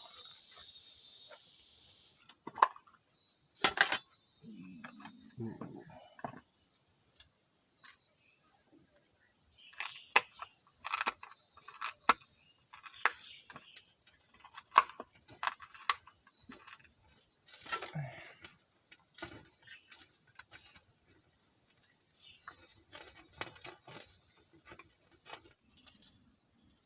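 Forest insects keep up a steady high-pitched chirring drone. Over it come irregular sharp knocks and clicks of handling or work at close range, loudest about four seconds in, a cluster around ten to twelve seconds, and another near fifteen seconds.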